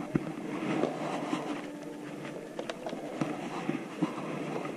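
Light clicks and rustles of carded plastic lure packages being handled and taken on and off metal pegboard hooks, a few scattered ticks over faint store room noise.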